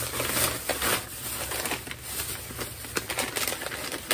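Snack packaging rustling and crinkling as it is handled, with scattered small clicks and knocks.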